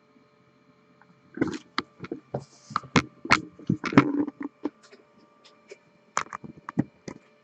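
A string of irregular sharp clicks and knocks in two clusters, over a steady faint electrical hum.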